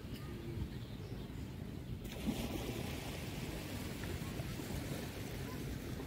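Small waves lapping and washing onto a sandy beach, with a soft hiss of surf setting in about two seconds in over a steady low rumble.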